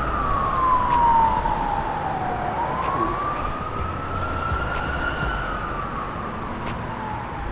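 Emergency-vehicle siren wailing, its pitch sliding slowly down and up in long sweeps of about two and a half seconds each, over a low steady rumble.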